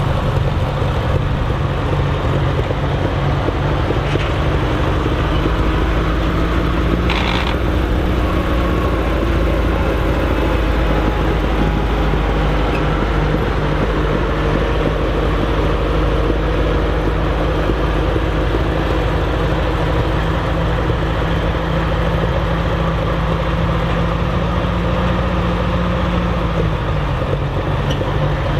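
Massey Ferguson 35 tractor engine running steadily while the tractor drives slowly, with a brief sharp noise about seven seconds in and the engine note dropping slightly near the end.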